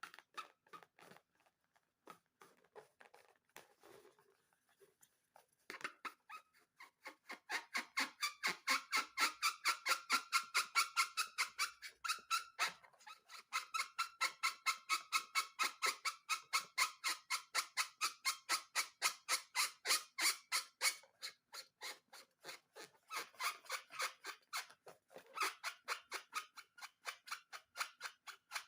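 Balloon slime being squeezed and worked by hand, making a steady run of squelchy, squeaky clicks about four times a second. A few soft clicks come first, and the steady squelching starts about six seconds in.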